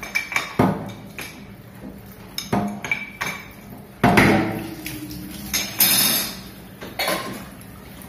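Metallic clanks and clinks, about a dozen, some ringing briefly, as an old chrome wall-mounted kitchen sink mixer is unscrewed and worked off its wall inlets; the loudest knocks come about four and six seconds in.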